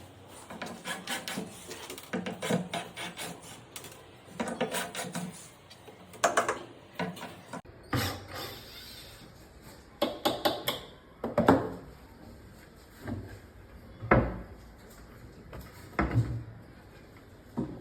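Hand tool worked over wood: quick runs of rubbing, scraping strokes, then single heavier strokes every second or two.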